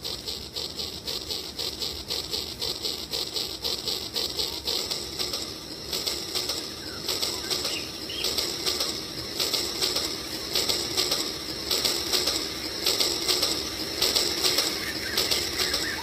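Battery-powered toy train running along track laid through shallow water, a rapid, even fluttering clatter that grows louder about six seconds in as the train comes closer.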